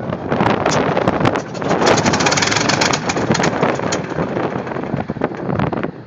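P-51D Mustang's Packard Merlin V-12 engine running roughly during start-up, firing in uneven pops that quicken and grow louder for a couple of seconds before turning ragged again.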